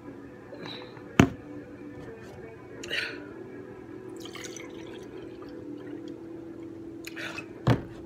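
Juice poured from a large plastic jug into a drinking glass, filling it. Two sharp knocks, about a second in and near the end, as the glass and then the jug are set down on the table.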